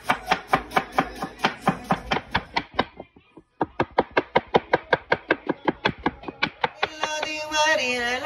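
Large kitchen knife chopping onion and herbs on a wooden cutting board in fast, even strokes, about five a second, with a short break a little after three seconds in. Music comes in near the end.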